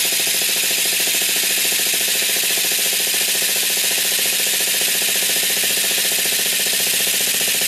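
Electric starter spinning a Traxxas 2.5 nitro engine over in one long, steady, unbroken crank. The engine does not catch: it is not getting fuel to the carburettor, which the owner puts down to it needing priming.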